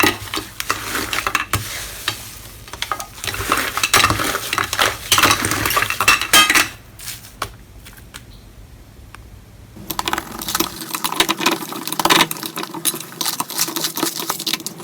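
Slime being squeezed and stirred by hand, with dense crackling clicks and pops. It goes quieter for a few seconds around the middle, then the crackling picks up again.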